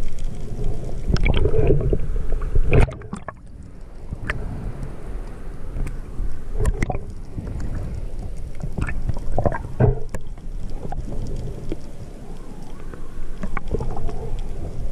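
Muffled, low sloshing and gurgling of water around a camera in an underwater housing during a spearfishing dive, with scattered sharp clicks. It is louder for the first three seconds, then quieter and steadier.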